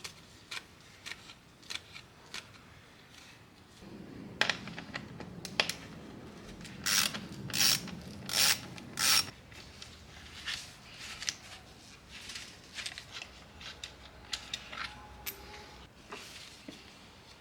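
Hand tools working on metal parts in a car's engine bay while the intercooler is removed: scattered clicks and clinks, with a run of four short, louder ratchet-like strokes near the middle.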